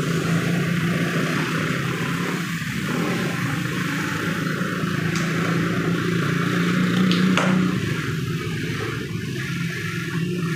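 Puri deep-frying in a large karahi of hot oil, a steady sizzle over a low continuous hum. A single metal clink about seven seconds in, as the skimmer strikes the pan or rack.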